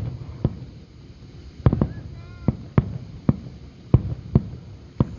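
Fireworks finale: aerial shells bursting in quick, irregular succession, about a dozen sharp booms in five seconds, with a short lull near the start.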